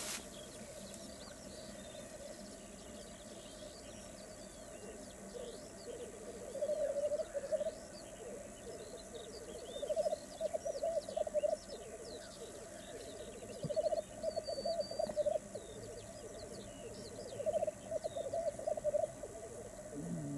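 Black grouse lekking: the males' continuous low, bubbling coo rises and falls, swelling into several louder bouts. Thin, high chirps of small birds sound over it.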